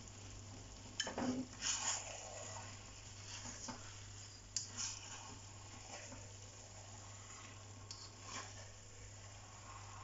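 A spatula scraping and knocking against a steel wok as rice noodles and vegetables are tossed, over a faint sizzle. The scrapes come in clusters: about a second in, around the middle and near the end.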